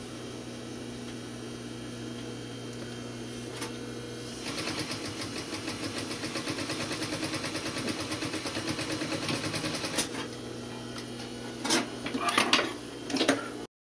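Industrial sewing machine humming at rest, then running a fast, steady burst of stitching for about five and a half seconds as it sews a close edge stitch, then stopping back to its hum. A few sharp knocks and clatters near the end.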